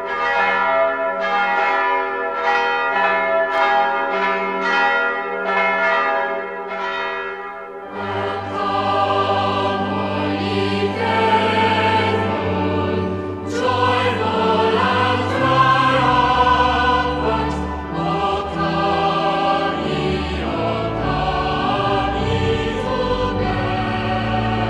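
Bells ring out about ten strokes, evenly spaced at roughly one and a half a second, each stroke ringing on. About a third of the way through a church choir comes in, singing with a full low accompaniment.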